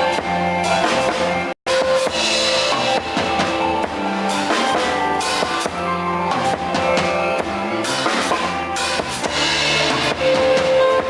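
Band music with drum kit, bass and guitar playing a steady beat, cutting out briefly for a moment about one and a half seconds in.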